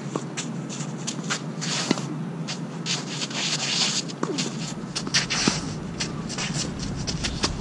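Tennis rally: sharp pops of rackets hitting the ball every couple of seconds, with shoes scuffing and sliding on the court between shots.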